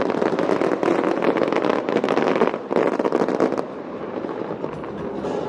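Fireworks crackling: a dense, rapid stream of small pops that dies down about three and a half seconds in.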